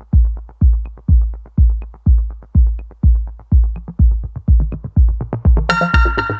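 Electronic background music: a deep kick drum beats about twice a second with quick ticks between, and synth chords come in near the end.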